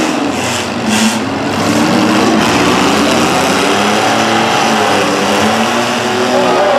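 Several compact demolition-derby cars' engines revving hard and unevenly, with a few short crunching impacts about a second in.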